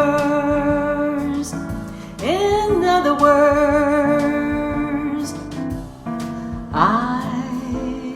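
Woman singing long held notes with vibrato over a piano accompaniment: the closing phrases of a jazz standard, three sustained notes in a row.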